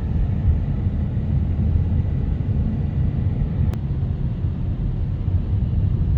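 Steady low rumble of a car's engine and tyres, heard from inside the cabin while it climbs a winding road, with one faint click a little past halfway.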